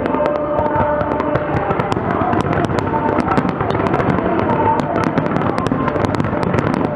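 Fireworks display: a dense, continuous run of crackling pops and small bangs, many a second, over a steady wash of noise.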